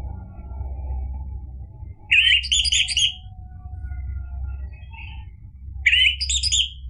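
Orange-headed thrush (anis merah) calling: two loud phrases about four seconds apart, each about a second long, a sweeping note followed by a quick run of repeated notes. A steady low hum runs underneath.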